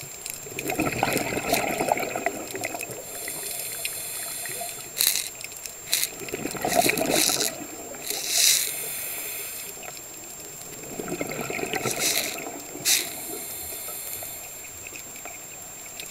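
Scuba diver breathing through a regulator underwater: three bubbling exhalations, about a second in, near seven seconds and near eleven seconds, each followed by a high hissing inhalation. A few sharp clicks fall between the breaths.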